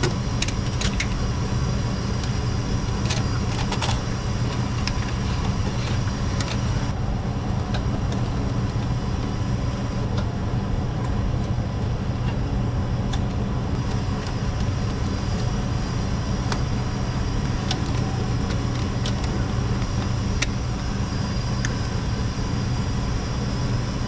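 Steady low mechanical drone of industrial machinery, unchanging throughout, with a few faint clicks and taps as wiring is handled in a steel control cabinet.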